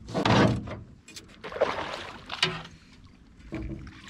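A landing net being grabbed and handled in a boat: a few bursts of rustling and knocking with some sharp clicks, the loudest right at the start.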